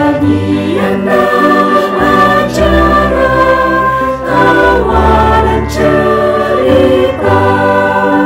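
Mixed-voice choir of men and women singing a church song in harmony, holding sustained chords that change about once a second.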